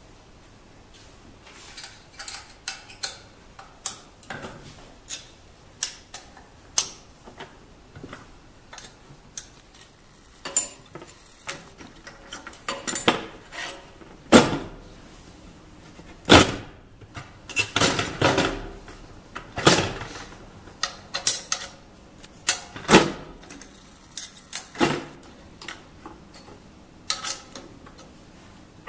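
Irregular metallic clicks and clanks from a manual carousel screen printing press being handled: its aluminium screen frame, clamps and registration parts knocked and adjusted by hand. The two loudest knocks come around the middle.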